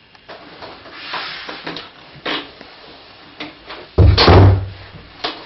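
A door being worked and banged: a run of clicks and knocks, then a loud thud about four seconds in and a last click near the end.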